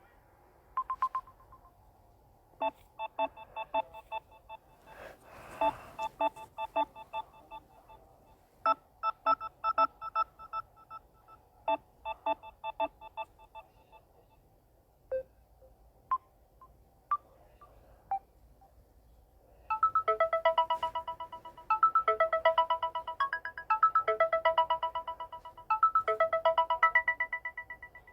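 Samsung Galaxy A01 Core stock ringtones playing one after another. First a short chime, then a run of quick plucked electronic notes, a few scattered single blips, and near the end a ringtone of trilling tone patterns repeated in four bursts.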